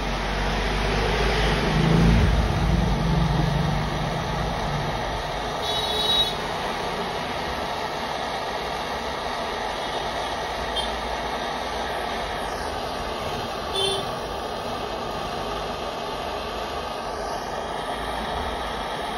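Handheld gas soldering torch burning with a steady hissing rush while soldering a gold rope chain. A low rumble swells about two seconds in, and two brief high chirps come around six seconds and again near fourteen seconds.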